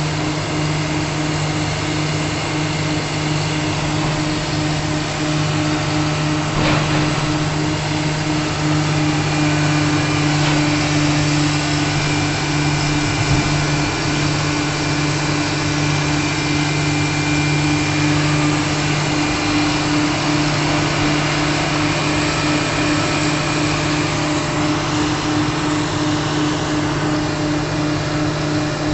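A motor running steadily at constant speed with a low, even hum, and a couple of brief knocks about seven and ten seconds in.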